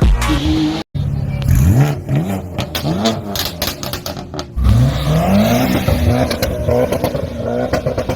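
Engine revving: several short blips that rise and fall in pitch, then a louder, longer rev from about halfway that climbs and holds with a wavering pitch.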